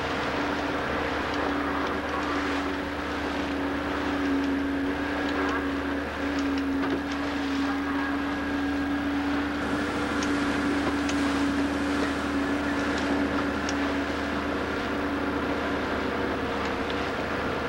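Motorboat engine running steadily while under way, with a constant hum, mixed with rushing water and wind noise, heard from on board.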